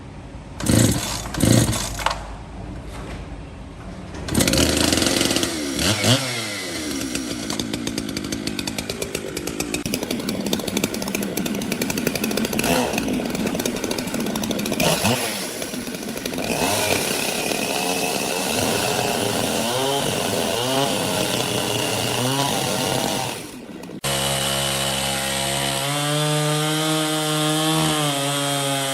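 Power saw cutting wood, loud and sustained, its pitch rising and falling as it works through the cut. It drops briefly near the end, then carries on as a steadier motor tone that wavers slowly.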